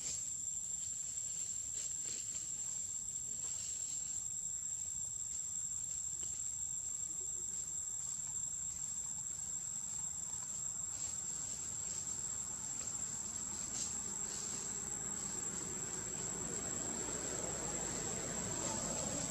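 Steady high-pitched insect chorus, one continuous shrill tone that holds unbroken throughout, with a faint low noise swelling near the end.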